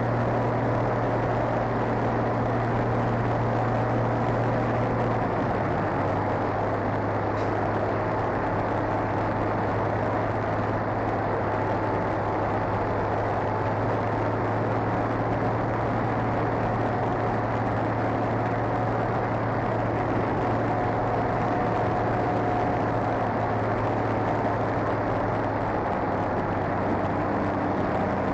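A vehicle engine idling steadily, its low hum shifting slightly in pitch a couple of times, under a constant rushing noise.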